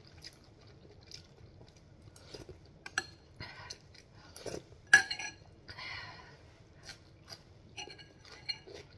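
A metal spoon clinking and scraping against a glass soup bowl and plate, in scattered light clicks with one sharp clink about five seconds in, and short slurps of soup taken from the spoon in between.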